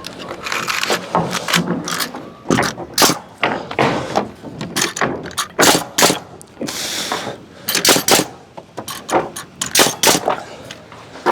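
Nails being driven into timber wall framing: an irregular run of sharp knocks and cracks, with a short burst of hiss about seven seconds in.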